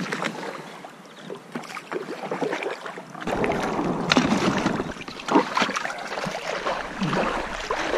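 Irregular splashing and sloshing of shallow water around a small inflatable dinghy as a person steps out and wades beside it.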